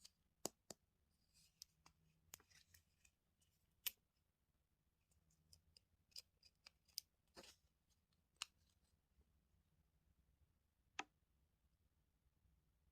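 Small plastic toy pieces and packaging being handled: scattered sharp clicks and taps, most in the first nine seconds and one more about eleven seconds in.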